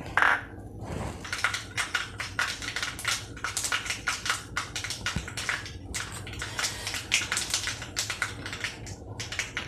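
Mustard seeds spluttering in hot coconut oil in a kadai: a dense, irregular crackle of sharp little pops. This is the tempering stage, where the oil is hot enough for the seeds to burst.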